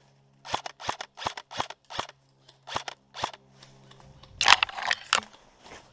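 An airsoft rifle firing single shots, seven sharp snaps about a third of a second apart, then a short pause. Near the end comes a louder, rapid cluster of snapping.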